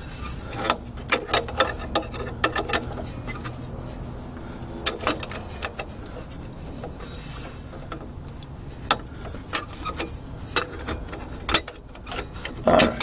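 Irregular metal clicks and taps of a flare-nut wrench working a brake line nut loose at the brake backing plate.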